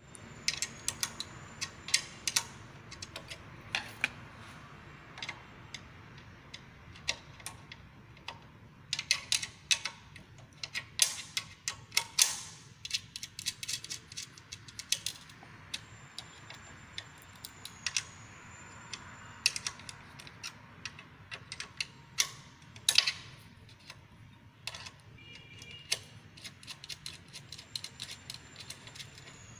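Metal hand tools clicking and clinking as a screwdriver and a small spanner work the mounting screws of a small cooling fan on a motor-controller board: irregular sharp ticks, with busy runs of rapid clicks about nine seconds in and again near the middle.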